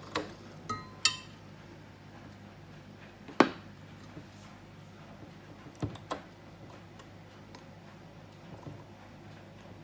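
A few sharp clicks and knocks from handling a Miele induction cooktop: its rotary control knob being turned and a stainless steel saucepan knocking against the glass top. The two loudest knocks come about a second and three and a half seconds in, with softer clicks between them.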